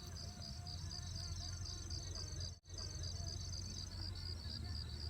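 Insects chirping in a steady pulsing rhythm, about three pulses a second, with a continuous high buzz from another insect that stops about three quarters of the way through. A low hum runs underneath, and the sound briefly cuts out about halfway.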